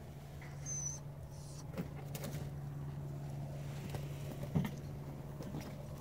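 A steady low hum, with scattered soft clicks and knocks and a brief high chirp about a second in.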